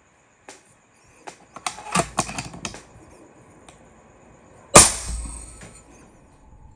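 An FX Impact MK II PCP air rifle fires once, nearly five seconds in: a single sharp crack that dies away over about a second. Before it comes a run of irregular clicks and knocks.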